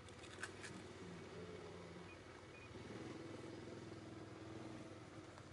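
Faint, steady low hum of a distant engine, with a few short clicks about half a second in.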